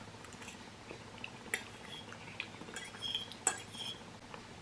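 Eating utensils clinking and tapping against a dish a few times while eating noodles, with the sharpest clinks about a second and a half and three and a half seconds in.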